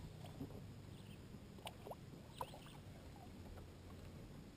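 Very quiet water sounds with a few faint small ticks as a largemouth bass is lowered into the lake at the side of a boat and released.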